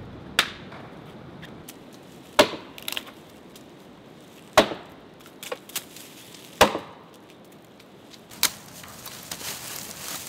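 Dry dead branches being snapped for firewood: four sharp cracks of splintering wood about two seconds apart, a weaker crack near the end, then rustling.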